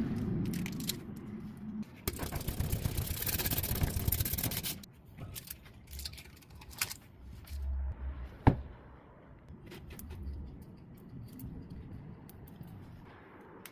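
Hand work on a tyre during a patch puncture repair: scraping and rubbing, a few seconds of hissing noise about two seconds in, then scattered clicks and scrapes with one sharp knock past the middle.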